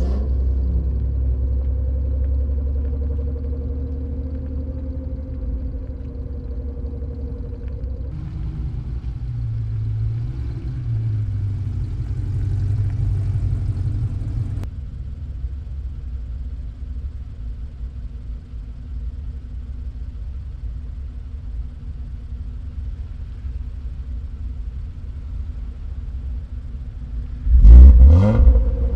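BMW E36 325is's straight-six engine running at low speed and idling, a steady low rumble. Just before the end, a nearby car's engine revs loudly, its pitch rising and falling.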